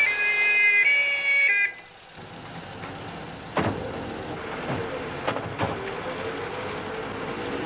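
Two-tone police siren alternating between two pitches, cutting off abruptly about a second and a half in. Then a few sharp bangs: one near the middle and two close together later.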